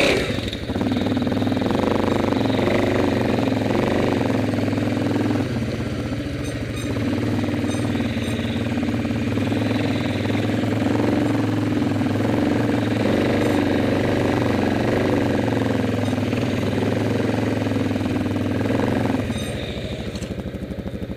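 Single-cylinder four-stroke ATV engines running while riding, a steady engine note that dips briefly around six seconds in and eases off about nineteen seconds in.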